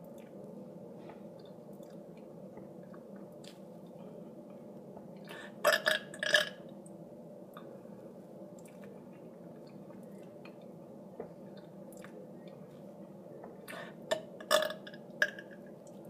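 A person burping: a quick cluster of short burps about six seconds in and another cluster near the end, over a steady low background hum.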